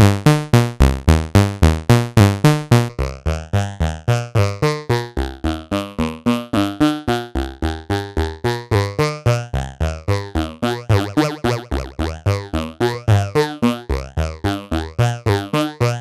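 A modular synthesizer playing a repeating sequence of short synth notes, about four or five a second, run through a Boss PH-2 Super Phaser converted to a Eurorack module. The phaser sweeps through the notes, and the sweep changes as its knobs are turned, most plainly about two-thirds of the way through.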